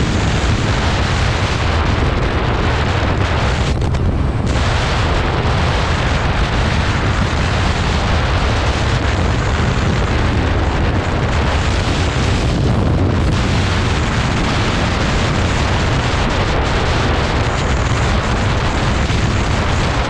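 Heavy wind noise buffeting the microphone of a rider on a 2020 Yamaha MT-07 at highway speed: a loud, steady rush with a deep rumble. The hiss thins briefly twice, about four and thirteen seconds in.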